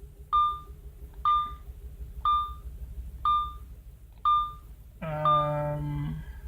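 Audi A6 dashboard warning beeps: five short, high beeps about a second apart, then a longer, lower tone lasting about a second. A steady low rumble from the idling, misfiring engine sits underneath.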